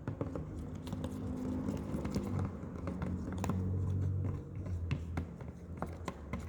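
Homemade glue slime being stirred and kneaded by hand: irregular sticky clicks and squelches, over a low steady hum.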